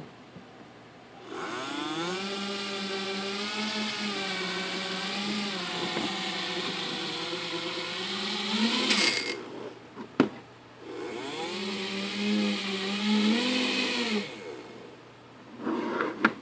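JJRC H6C mini quadcopter's small brushed motors spinning up and running with a high whine that wavers in pitch with the throttle, stopping about nine seconds in and spinning up again for a few seconds. The drone's right rear motor is not working. A couple of short clicks fall in the pause.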